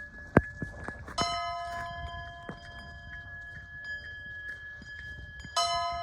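A bell struck twice, about four seconds apart, each strike ringing on and slowly fading, amid sharp clicks and knocks, the loudest a single knock just before the first strike.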